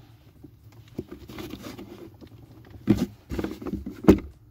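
Plastic car interior trim being handled and prised at by hand: irregular scraping and rustling with a few sharp knocks, the loudest about four seconds in.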